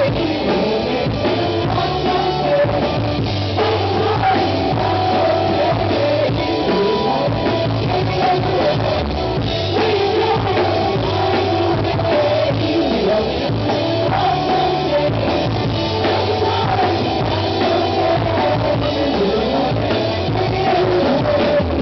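Live rock band playing: a woman sings over electric guitar and a drum kit.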